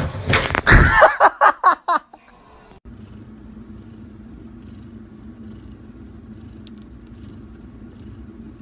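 Domestic cat purring: a steady, low rumbling hum that starts about three seconds in. It follows a burst of loud, short pitched cries in the first two seconds.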